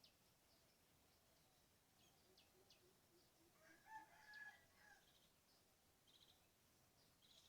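A rooster crows once, faintly, for about a second and a half near the middle. Small birds give short, high chirps around it.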